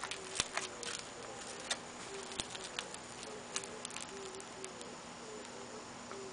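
Light, irregular clicks and pattering from inside an open septic tank, busiest in the first few seconds and thinning out after, over a faint steady hum.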